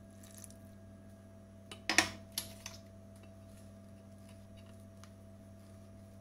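Silicone spatula stirring flour and a little added water in a stainless steel mixing bowl: faint scraping, with a few sharp knocks about two seconds in. A steady low hum underneath.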